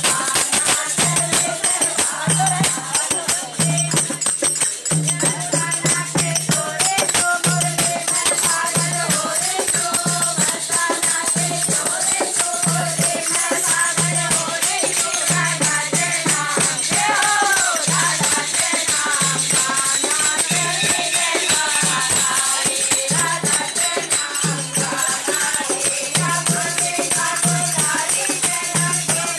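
A group of women singing a Hindu devotional bhajan, with hand clapping and fast jingling percussion over a steady low beat.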